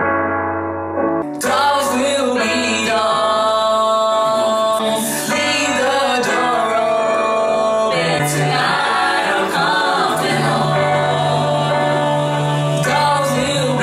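A woman singing over a keyboard accompaniment: a held keyboard chord, then about a second in the voice comes in, sliding up and down in pitch through long, ornamented lines.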